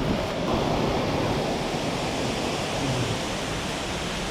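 Rushing water of a jungle river and waterfall: a steady, even noise.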